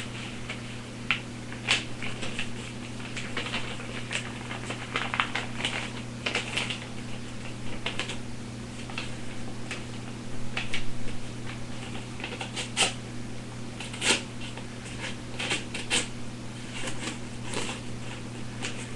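A fairly dull pocket knife blade cutting and sawing through paper, in irregular rasping, crackling strokes with rustling of the sheet.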